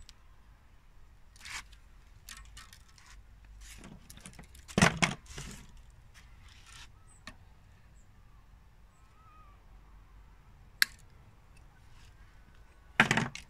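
Handling noise of a tennis racket being strung: the string rustling and sliding through the frame as a knot is tied, in scattered soft clicks and rustles. There is a louder cluster about five seconds in and a sharp click near the end.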